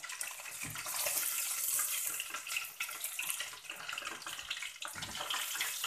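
Battered chicken pieces deep-frying in hot oil in a stainless steel pot: a steady crackling sizzle.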